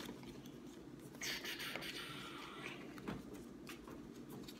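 Folded paper origami units rustling and scraping as they are handled and slotted together, with a brief louder rustle a little over a second in and a few light taps.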